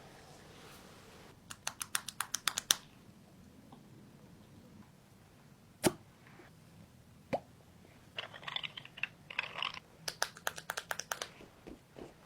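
Quick runs of sharp clicks, about six a second, with two single sharp clicks in between and a short rustling stretch.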